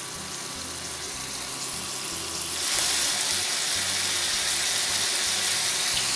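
Chicken pieces sizzling in hot vegetable oil in a frying pan, a steady hiss that grows louder a little under three seconds in as a fresh batch of raw chicken goes into the pan.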